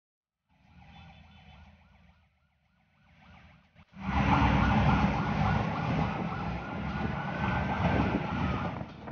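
Engine and road rumble heard from an open-top VW Safari driving in traffic, loud from about four seconds in. A siren wails over it, slowly rising in pitch and falling off near the end.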